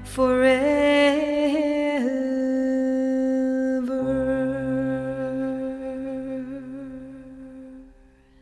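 Closing song: a singing voice holding long, slightly wavering notes, which fades out near the end.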